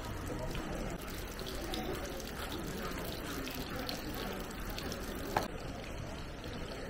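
Outdoor crowd ambience at a shrine: faint, indistinct voices and a steady low rumble of wind on the microphone, with a single sharp click about five seconds in.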